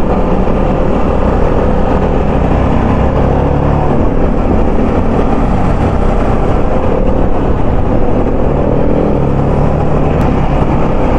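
TVS Apache RR 310's single-cylinder engine running at a steady cruise, mixed with wind noise on the helmet microphone.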